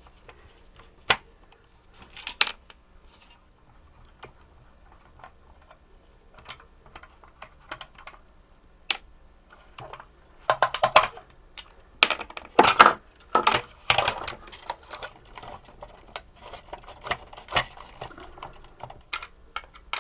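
Hands working on a plastic remote-control toy tank as it is taken apart: scattered small clicks and taps of plastic parts, with a busier run of clatter about ten to fourteen seconds in.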